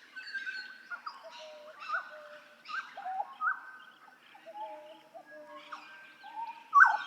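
Hooded butcherbird singing: a series of clear, fluty whistled notes with short upward and downward slurs, some notes overlapping, the loudest phrase near the end.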